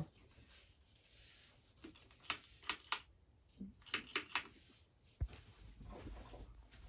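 Several sharp clicks and taps in two quick clusters, then one dull knock about five seconds in, as a dead mixer grinder and its switch are checked; the mixer's motor does not start.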